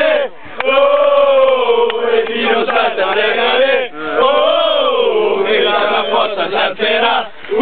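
A group of supporters chanting a fan song together inside a coach, in long drawn-out sung phrases, with a brief break about halfway through.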